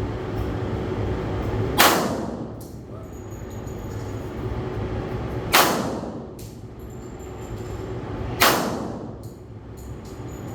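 Three shots from a pump-action shotgun, roughly three to four seconds apart, each trailing off in a short echo. A fainter sharp click follows each shot within a second.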